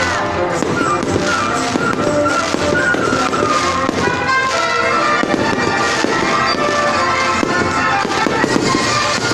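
Aerial fireworks going off in rapid succession, many overlapping bangs and crackles, with music playing loudly along with the display.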